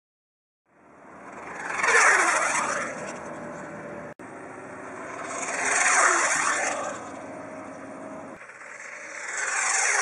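Electric-powered R/C Bullet speed-record streamliner RC car passing at speed three times. Each pass builds to a loud rush of motor whine and tyre and wind noise, and the pitch drops as the car goes by.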